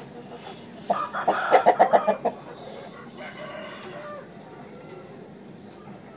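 Aseel rooster crowing once, starting about a second in: a loud, pulsing crow that trails off over the next two seconds.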